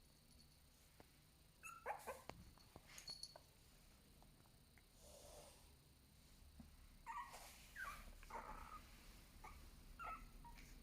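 A tiny puppy making faint, short, high-pitched squeaks and whimpers: a couple about two and three seconds in, then a run of them from about seven seconds on.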